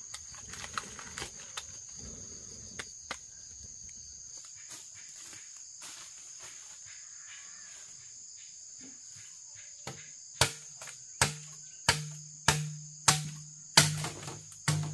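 Insects droning steadily and high-pitched. About ten seconds in, a run of sharp knocks begins, each with a short low ring, about three every two seconds.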